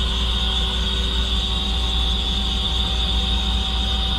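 Steady hum of a powered-up Mazak CNC lathe standing idle, a constant high whine over a low drone.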